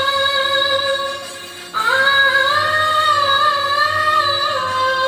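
A woman singing over music: two long, drawn-out notes, with a short break between them a little under two seconds in.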